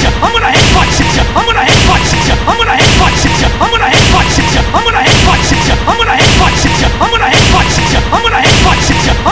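Looped cartoon fighting sound effects: a crashing hit with a swish, repeated a little more often than once a second, over music.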